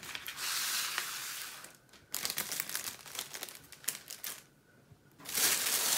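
Plastic packaging crinkling and rustling as it is handled, in several spells with a short pause shortly before the end.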